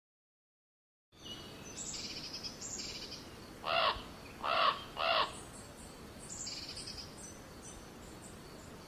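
Silence for about a second, then outdoor ambience with small birds chirping in short high bursts. A little past the middle a bird gives three loud calls in quick succession, about half a second apart.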